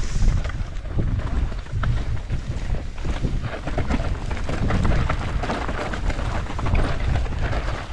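Wind rumbling on the microphone as a mountain bike is ridden over rough trail, with many quick clicks and rattles from the bike and tyres.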